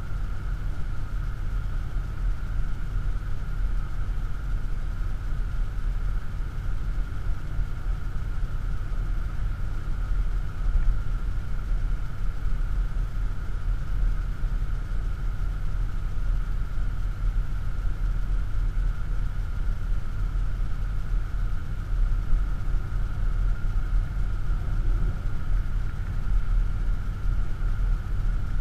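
Steady cabin noise of an Audi SQ7 4.0 TDI V8 diesel cruising at about 110 km/h: an even low rumble of engine, tyres and road, with a faint steady hum above it.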